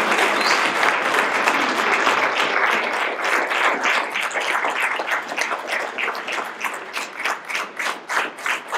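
Audience applause, dense at first, thinning over the last few seconds to a few people clapping in distinct claps.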